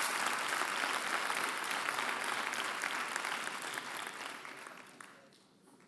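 Large audience applauding, the clapping dying away over the last couple of seconds.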